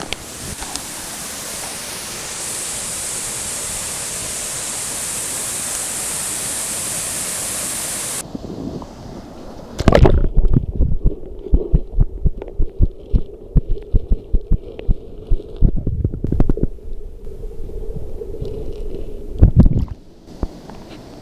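Waterfall rushing steadily, cutting off abruptly about eight seconds in. Then, for about ten seconds, loud irregular low thumps and rumbles on the microphone, ending suddenly near the end.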